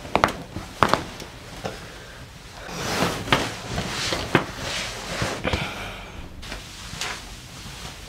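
Two sharp cracks within the first second from a side-posture low-back chiropractic adjustment: joints popping as the spine is twisted. A few seconds later comes a stretch of rustling and shifting as the patient moves on the leather table, with a few small knocks.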